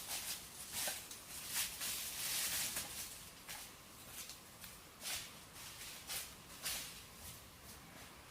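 Irregular light rustles and clicks, with a longer stretch of rustling about two to three seconds in.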